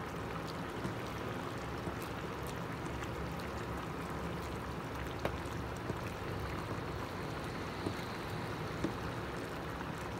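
Bean and tomato sauce simmering in a frying pan, a steady bubbling, with a few soft clicks of a plastic potato masher against the pot as beans are mashed.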